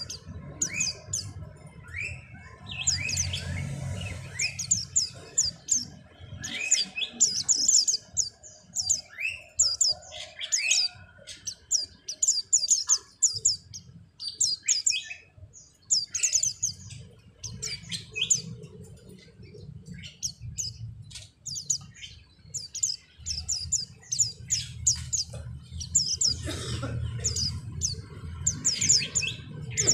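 White-eyes (Zosterops, 'pleci') chirping in their courtship before mating: clusters of quick, sharp, high-pitched chirps repeating throughout, over a low rumble.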